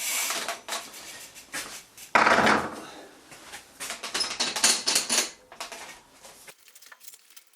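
Workshop handling noises: a run of clicks, knocks and light clatter as tools and bike parts are moved about, with a louder rattle about two seconds in.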